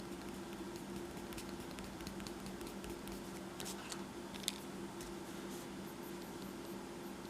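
Faint scratches and light taps of a pencil working on paper, scattered irregularly, with one sharper tick about four and a half seconds in, over a steady low hum.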